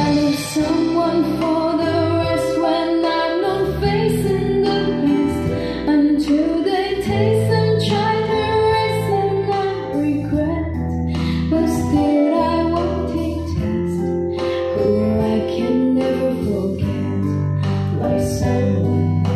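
A song with a woman singing over a steady bass line, played back through Polk Audio LS-50 floor-standing loudspeakers.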